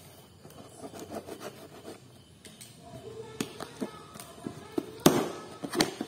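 Cardboard shipping box being opened by hand: light rubbing and tapping on the box, then sharp cracks and crackling as the taped flaps are pulled apart, loudest about five seconds in.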